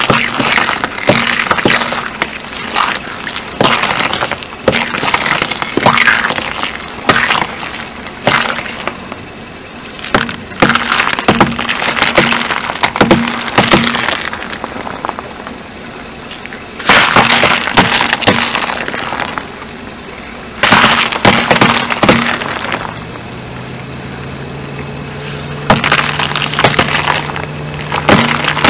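Car tyre rolling over raw hen's eggs and cardboard egg cartons, the shells cracking and crunching in quick runs of sharp snaps, with short pauses between the crushes.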